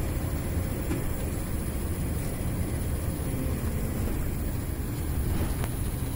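Gree inverter air conditioner unit running with a steady low hum.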